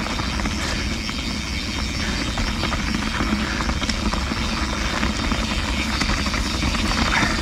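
Canyon Spectral CF mountain bike ridden along a dirt trail: steady wind buffeting on the action camera's microphone over tyre noise, with small knocks and rattles from the bike.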